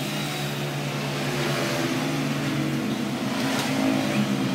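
A motor running steadily at a constant low pitch, with no revving.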